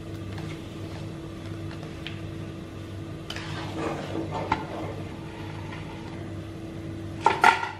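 Fish-head soup boiling in a large aluminium pot under a steady low hum, while a metal spatula stirs it and ticks against the pot a few times. The loudest is a short ringing knock of the spatula on the pot near the end.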